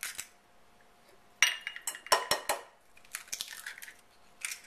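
Eggs being cracked against the rim of a glass mixing bowl. A sharp knock about a second and a half in makes the bowl ring briefly, then comes a quick run of clicks and crackles as the shell is pulled apart, and more shell clicks follow later.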